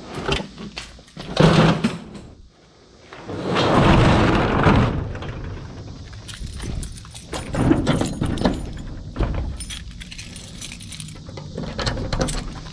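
Small metal objects clinking and rattling as they are handled, with a rush of noise lasting a second or two about three seconds in.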